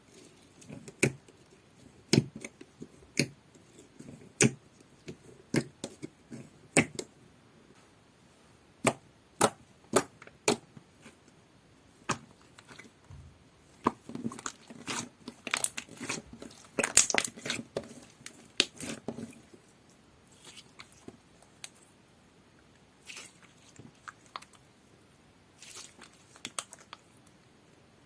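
Hands working a sky-blue avalanche slime, making sharp sticky pops and clicks. They come about once a second at first, turn into a dense crackling flurry midway, then thin out to scattered pops.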